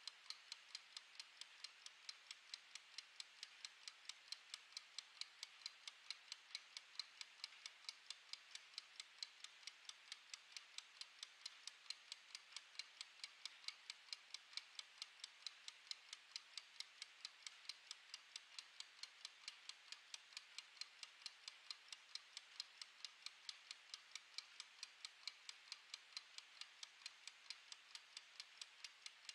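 Wind-up mechanical kitchen timer ticking: its clockwork escapement runs in a light, fast, even tick as it counts down.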